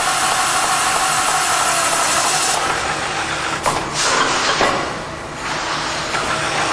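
A CNC beam drill's 13/16-inch Ocean Penetrator drill bit cutting through a 3/8-inch steel beam web with a steady hiss, which stops about two and a half seconds in as the bit finishes the hole and retracts. Two clunks about a second apart follow as the drill moves to the next hole, over the machine's steady running.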